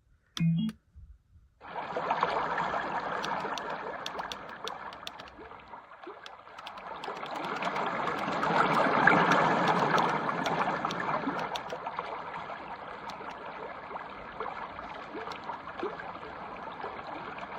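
Sunrise alarm clock's built-in white-noise sound machine playing a running-water nature sound through its small speaker. It starts about two seconds in and swells to its loudest around the middle.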